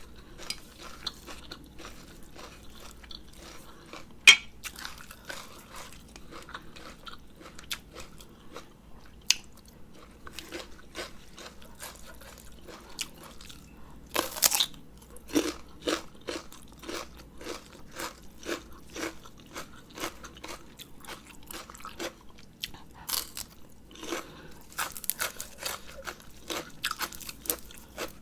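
Close-miked chewing and crunching of a rice-noodle salad with fresh herbs: a steady run of short, crisp mouth clicks and bites, with one sharp loud click about four seconds in.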